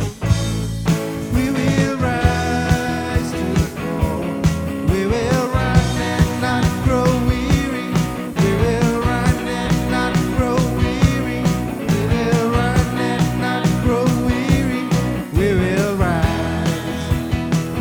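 Worship song played by a band, with a singer's melody over guitar and a steady drum beat.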